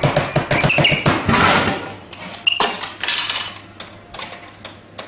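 A capuchin monkey rapidly slapping and banging on a drinks vending machine's plastic buttons, with short high squeaks. A sharp clunk comes about halfway through, then the monkey clatters about in the dispenser tray.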